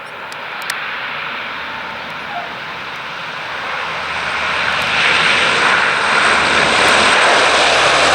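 Military aircraft engines roaring steadily and growing louder, as a landing aircraft draws near.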